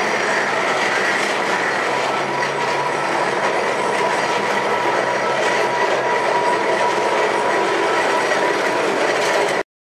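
Calcutta tram car running along street track, a steady rolling rattle of the car and wheels with a thin, steady whine over it. It cuts off suddenly just before the end.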